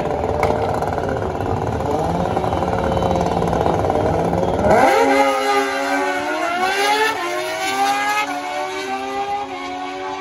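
Two drag-racing sport bikes revving hard on the start line, then launching about five seconds in. Their engine notes climb and drop back in steps at each upshift as they pull away down the strip.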